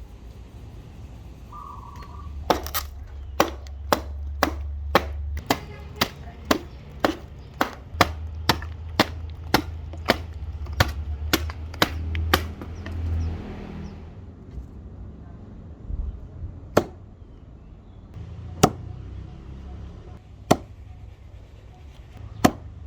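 Plumb Boy Scout camping axe chopping wood: a run of about twenty quick, sharp strikes, roughly two a second, then four slower, single blows spaced a couple of seconds apart.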